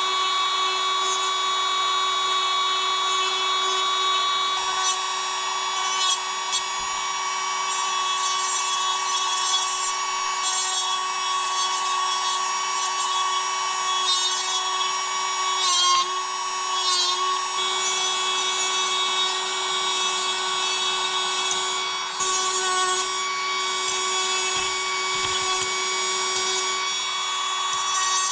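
Small electric power tool running at a steady speed with a high whine, dipping briefly in pitch twice around the middle as it comes under load.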